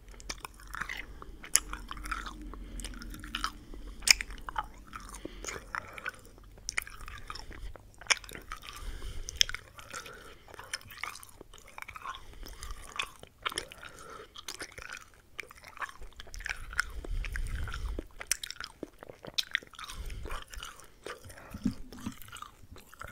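Wet ASMR mouth sounds close to the microphone: an irregular stream of sharp lip and tongue clicks and smacks, several a second.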